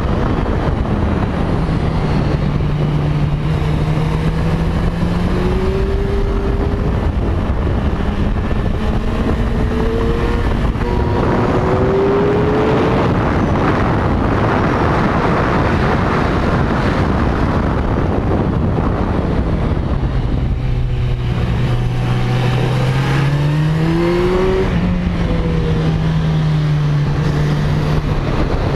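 Kawasaki Z1000's inline-four engine under hard riding, its note rising and falling with throttle and gear changes, under heavy wind rush. About two-thirds of the way through the revs drop low and then climb back up again.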